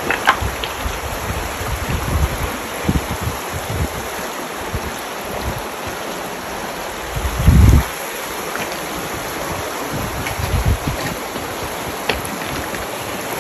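Steady rush of a shallow creek running over a gravel bed, with wind buffeting the microphone in irregular low gusts, the strongest a little past halfway.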